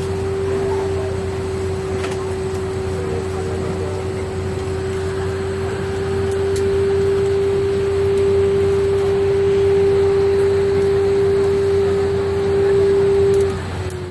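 A steady mechanical whine from the airliner's systems holds one pitch and begins winding down slowly near the end, over the steady rush of the cabin ventilation air.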